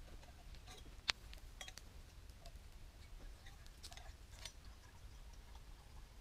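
Faint clicks and light knocks of camp gear being handled, with one sharp click about a second in, over a low steady rumble.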